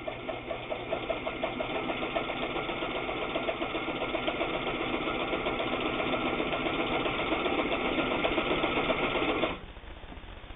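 Janome New Home Double Duty all-metal sewing machine running a straight stitch through a piece of sheeting. It grows a little louder as it runs, then stops suddenly near the end.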